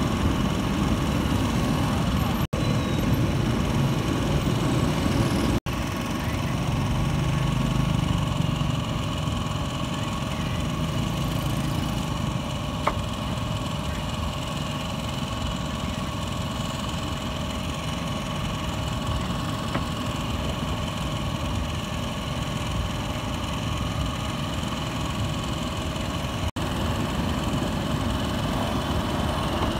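A motor engine running steadily at idle, with a constant hum over it. The sound drops out abruptly for an instant three times.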